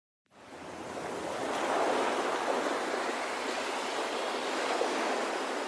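Steady rushing road and wind noise heard inside a moving car, fading in over the first second or two.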